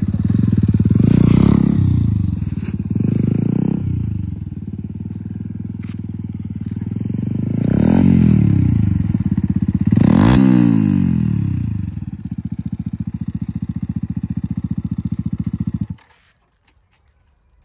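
Yamaha MT-15's single-cylinder engine through an Akrapovic slip-on exhaust, idling and revved in several quick blips, then switched off about sixteen seconds in. The exhaust note is loud and bassy with no crackle.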